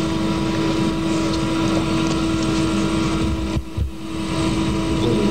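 Steady rushing noise with a constant hum from an open microphone and sound system, dropping out briefly about three and a half seconds in.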